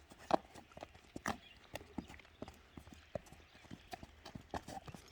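Hooves of a ridden horse striking the ground in an uneven run of clip-clops.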